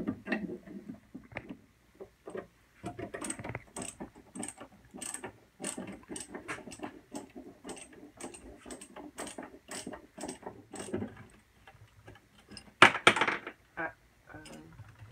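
Small metal tools and hardware clicking and rattling irregularly as screws on a freezer's back panel are being worked loose. A louder clatter comes about 13 seconds in.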